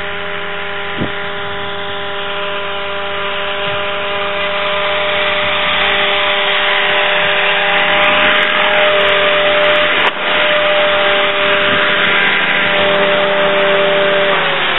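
A small engine running at a steady high speed under a rushing noise that grows louder from about the middle. Its pitch drops right at the end as it slows down.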